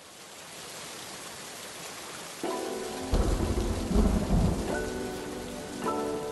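Rain and thunder sound effects: steady rain with a low rumble of thunder about three seconds in, while music chords come in over it about two and a half seconds in.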